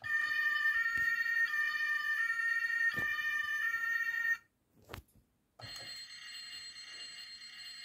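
A toy fire engine's electronic two-tone siren sound effect, set off by a button press. It alternates hi-lo between two pitches about every 0.7 s and stops after about four seconds. After a click, a quieter steady electronic sound effect starts a little past the middle.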